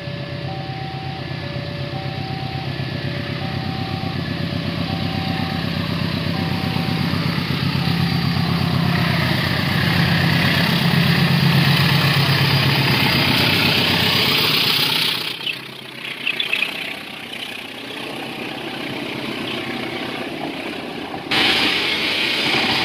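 Level-crossing warning alarm repeating a two-tone chime as a diesel-hauled passenger train approaches. The locomotive's engine rumble grows to its loudest about ten to twelve seconds in as it passes. The carriages then roll by with steady wheel noise, and the alarm chime is heard again near the end.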